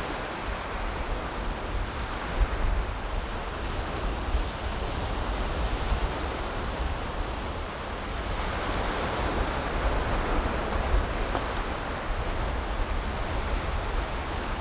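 Steady wash of ocean surf with wind buffeting the microphone as a low rumble.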